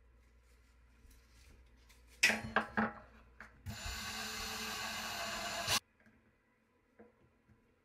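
A few sharp knocks and rattles, then a small electric motor whirs steadily for about two seconds and cuts off suddenly.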